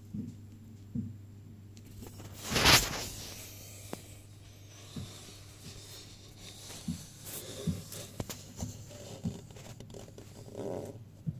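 Handling noise as the camera is moved around the terrarium plants: one loud rustle about two and a half seconds in, then scattered soft knocks and clicks over a low steady hum.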